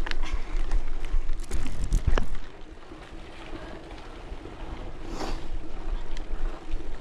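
A mountain bike riding along, with wind buffeting the microphone and the tyres rolling on the trail. A few sharp rattling knocks come about two seconds in, and there is a brief swell of noise about five seconds in.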